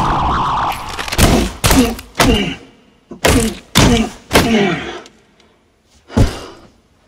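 A series of punch sound effects: about seven heavy thuds with short gaps between them, each with a brief falling tone, the last one after a pause of more than a second. A music track fades out in the first second.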